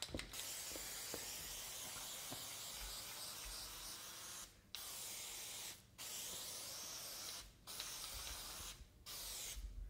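Aerosol can of drywall texture spraying with a steady hiss: one long spray of about four seconds, then four shorter sprays separated by brief pauses.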